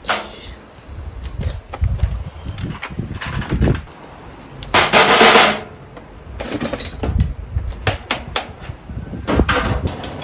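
Irregular knocks and clanks of hands-on repair work on a kelp-washing machine, with a loud hissing burst lasting about a second roughly five seconds in.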